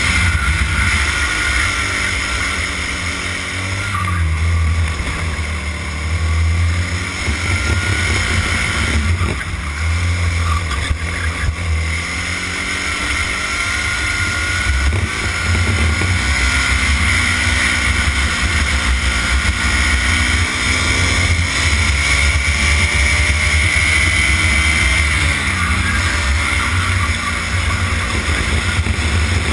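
Racing kart engine heard onboard at close range, running hard through a lap: its pitch drops as it slows for corners and climbs again on the straights, several times.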